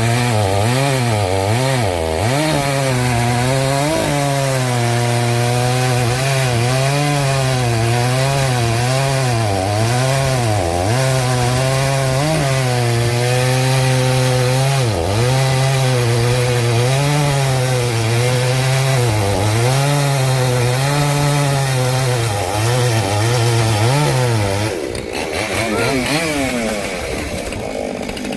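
Two-stroke chainsaw at high revs, cutting through a block of dense, dried elm. The engine note dips and recovers again and again as the chain loads up in the wood. Near the end it winds down as the cut finishes.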